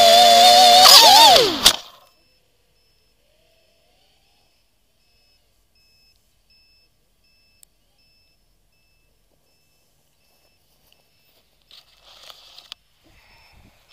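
FPV quadcopter's brushless motors whining at high pitch, then spinning down in a steep falling glide as it crashes into the grass, cutting off with a click. Then near silence with faint, evenly repeated high beeps and a faint rustle near the end.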